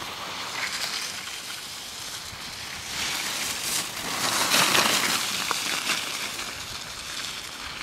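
Alpine skis carving giant slalom turns on firm snow: a scraping hiss that builds as the skier passes close, loudest about halfway through, then fades.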